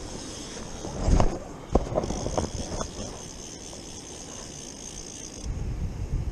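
A fly reel's click drag buzzing steadily as a hooked salmon pulls line off against the bent rod, cutting off about five and a half seconds in. Handling thumps come first, and wind rumbles on the microphone near the end.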